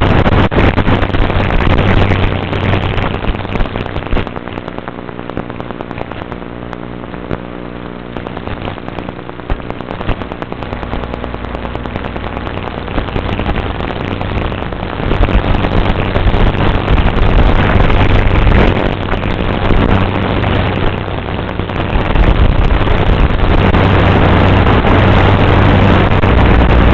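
A small motor running with a steady hum under loud rattling and rubbing noise close to the microphone. The noise drops for a while after about four seconds, where a pitched motor whine shows, then comes back louder after about fifteen seconds.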